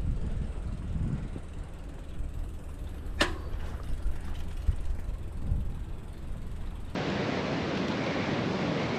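Low wind-and-riding rumble from a loaded touring bicycle on the move, with faint mechanical ticking and a short sharp squeak about three seconds in. About seven seconds in it cuts abruptly to a steady, even rush of sea surf.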